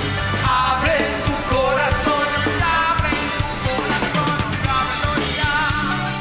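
Rock band playing a song, with the drum kit's bass drum and snare driving a steady beat under wavering melodic lines.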